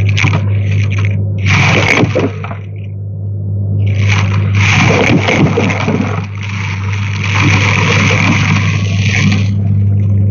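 Hoover vacuum cleaner running. A steady low hum lies under rushing, scraping noise that swells and drops off irregularly every second or two.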